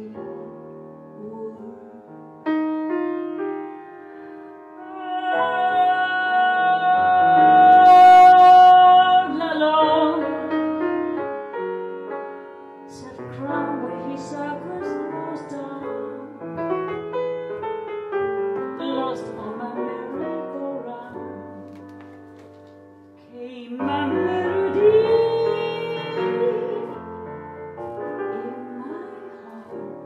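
Grand piano playing a slow jazz ballad, with a woman's voice singing over it and holding a long note about eight seconds in, the loudest part.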